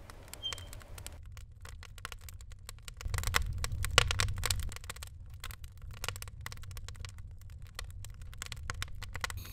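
Wood fire burning in a grate, crackling with many sharp, irregular pops over a low rumble; the pops are thickest and loudest about three to four seconds in.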